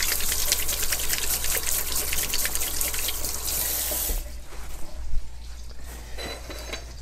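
Butter and oil sizzling and crackling in a hot wok, a dense spatter of fine pops that stops suddenly about four seconds in.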